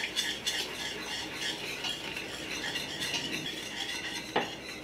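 Wire whisk scraping around the bottom of a stainless steel stock pot in quick repeated strokes, whisking chicken stock into a thick roux. A single sharp clink comes about four and a half seconds in.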